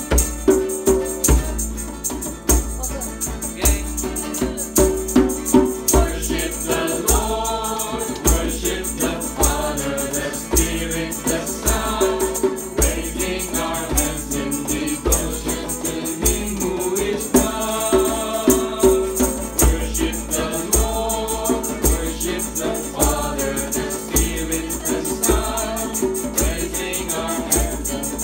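Small mixed group singing a Sri Lankan hymn together, with a shaken rattle and hand clapping keeping a steady beat.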